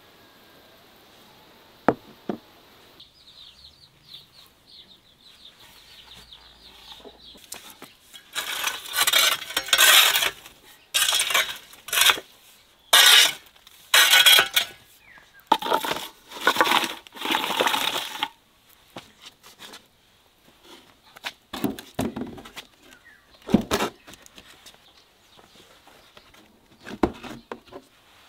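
Glowing embers being raked and scraped across the brick floor of a clay dome wood-fired oven with a long-handled rake. It is a run of rough scraping strokes, each half a second to a second long, followed by a few scattered knocks.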